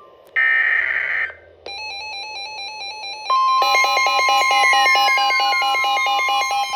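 Electronic alert tones layered into a synthesized intro. A short buzzy data-like burst comes under a second in, then a pattern of alternating electronic beeps. About three seconds in, a steady high alarm tone joins, with a pulsing lower tone and slowly falling sweeps.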